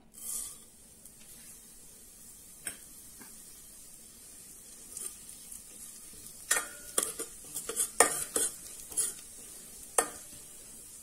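Whole cumin seeds sizzling in hot oil in a stainless steel pan, a steady hiss that is briefly louder at the start. From about six seconds in, a metal spoon stirring the seeds clicks and scrapes against the pan in a quick run of knocks, then once more near the end.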